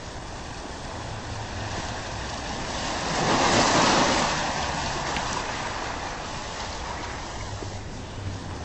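A steady rushing noise that swells to its loudest about three and a half seconds in, then slowly eases back.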